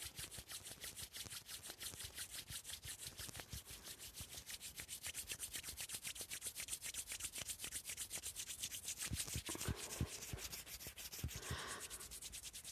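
Fast, even rubbing strokes, several a second, like hands or fabric being rubbed briskly, with a few soft low knocks about nine to ten seconds in.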